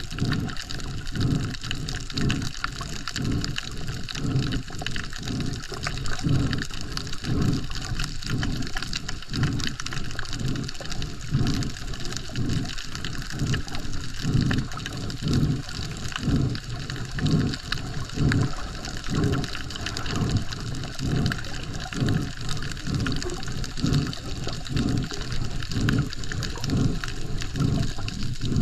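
Water sloshing and rushing, heard underwater, with a regular low pulsing about twice a second from a snorkeler swimming.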